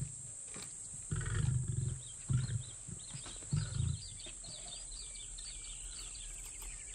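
Lionesses giving low growls, three times in the first four seconds, the first the longest.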